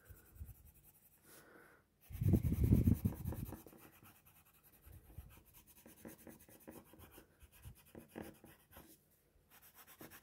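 Yellow coloured pencil shading on paper: a run of rapid scratchy strokes, loudest about two seconds in, followed by lighter, intermittent strokes.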